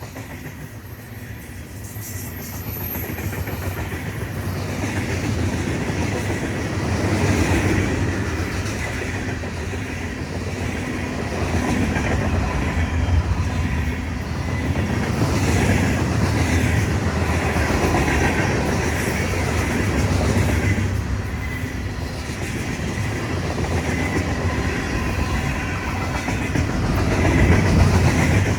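A train passing at speed, its cars rolling by with a steady rumble and clatter of wheels on the rails, growing louder over the first few seconds.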